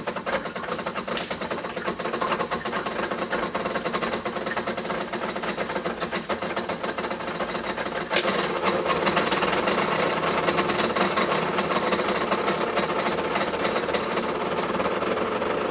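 Decent Espresso DE1 XL espresso machine's vibratory pump buzzing steadily while it wets the puck before any coffee flows. About halfway through there is a click and the buzz gets louder.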